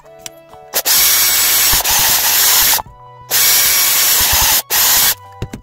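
A power tool running in three loud bursts, the first about two seconds long, the next two shorter with brief breaks between, over background music.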